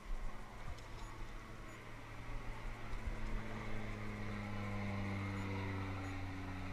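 Light propeller aircraft flying over, a steady engine drone that grows louder to about five seconds in, over the rush of the stream.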